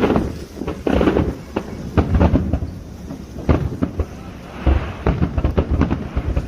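Fireworks going off in a quick series of loud bangs, with crackling between them.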